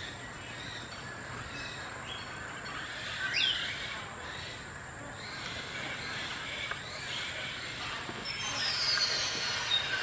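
Birds calling over a steady high-pitched background hum: one short, loud, rising call about three and a half seconds in, and a quick run of falling whistled notes near the end.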